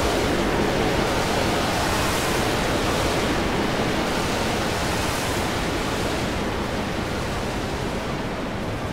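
A dense, even wash of noise from the soundtracks of many video clips played over one another at once, with no single sound standing out. It fades slowly, and its highest hiss drops away near the end.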